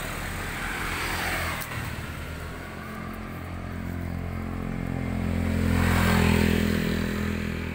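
A motor vehicle's engine running past, swelling to its loudest about six seconds in and then fading.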